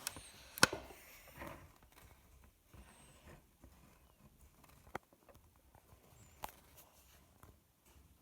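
Scattered small clicks and taps from handling parts during the teardown. The loudest comes about half a second in, and fainter ones come near five and six and a half seconds.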